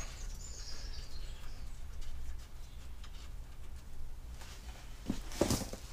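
Quiet handling noises as an air-conditioning condenser is worked into place and its refrigerant pipe joints are pushed together, with a faint rub in the first second and a few knocks about five seconds in.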